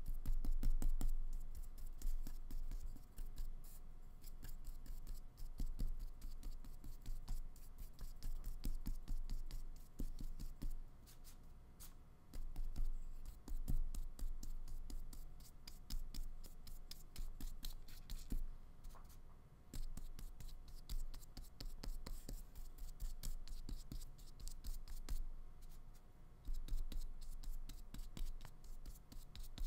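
Flat paintbrush scrubbing acrylic paint onto paper: a continuous run of short, scratchy brush strokes.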